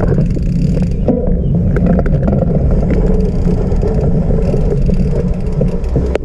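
Mountain bike being ridden over a rough trail: a loud, steady rumble from the tyres and frame, with frequent clicks and rattles from the bike.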